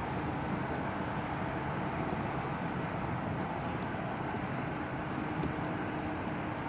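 Steady low rumble and hiss of outdoor background noise with a faint hum, with no distinct events.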